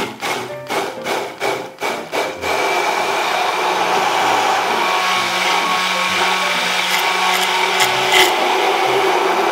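Hand-held immersion blender puréeing canned whole tomatoes in a tall plastic beaker. It starts with a quick series of short pulses over the first couple of seconds, then runs steadily.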